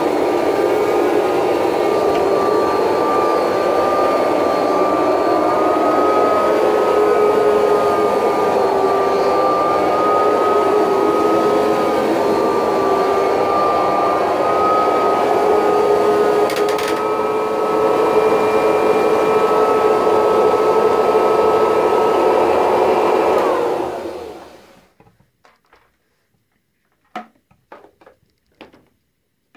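Kirby Heritage II upright vacuum cleaner running with the Rug Renovator shampoo attachment: a steady motor whine. About 24 seconds in, it is switched off and winds down, its pitch falling as it stops, followed by a few faint knocks.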